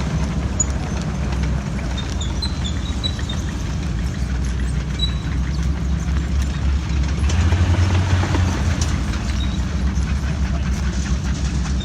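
A heavy vehicle engine running with a steady low rumble that swells briefly about seven to eight seconds in.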